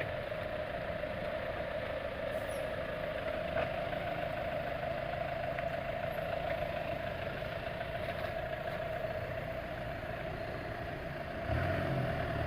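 Off-road 4x4 engine running steadily, its low rumble growing louder about a second before the end.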